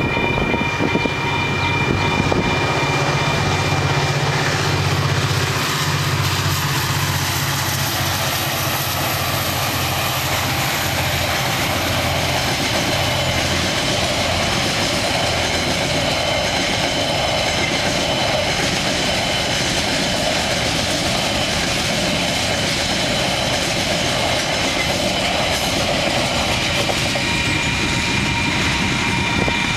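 Diesel-hauled freight train passing over a level crossing: a low locomotive engine note for the first ten seconds or so, then the container wagons rolling past with wheel clatter. The crossing's warning bells ring steadily under it.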